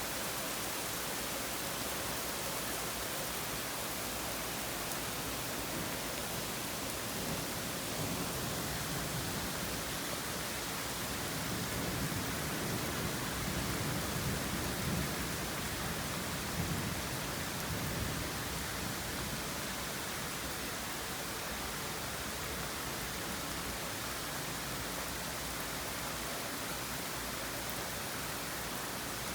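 Steady heavy rain falling, with a low rumble of distant thunder swelling and fading in the middle.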